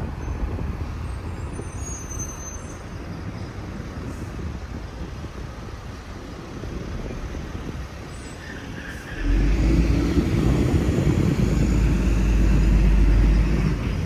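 Road traffic passing, which gets much louder about nine seconds in as a heavy vehicle's engine runs close by with a deep rumble.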